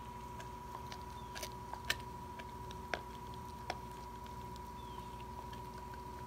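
Dog chewing a raw venison rib, its teeth cracking and crunching on the bone in scattered sharp clicks, the loudest about two seconds in.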